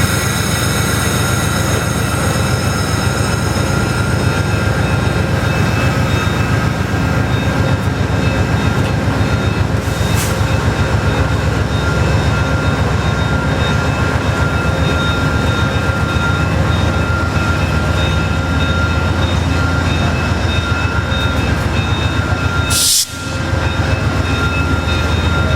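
VIA Rail P42DC diesel locomotive standing at a station platform, its engine running with a steady low drone and a few constant whining tones. There is a short hiss about ten seconds in and another near the end.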